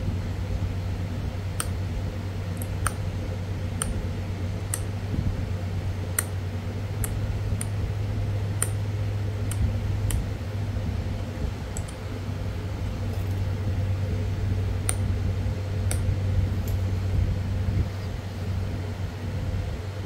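Pressure flaking a Florida coral arrowhead: sharp little clicks as small flakes pop off the edge, at irregular intervals about a second apart, over a steady low hum.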